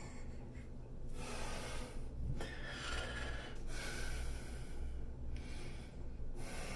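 A man breathing heavily in and out: several long, noisy breaths of about a second each, with short pauses between them.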